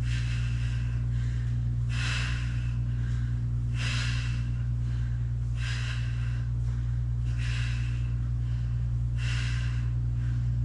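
A woman's heavy, rhythmic breathing, a short forceful breath about every two seconds, one per rep of a single-leg glute bridge, with a steady low hum underneath.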